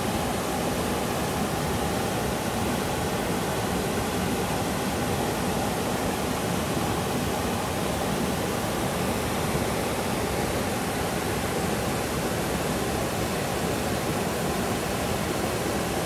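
Small two-tiered waterfall pouring over a rock ledge into a shallow pool: a steady, even rush of falling and splashing water.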